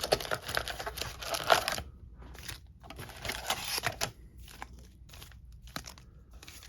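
Sealed trading-card packs rustling and crinkling as they are pulled out of the box: a dense crackle for about the first two seconds, then scattered rustles and light taps.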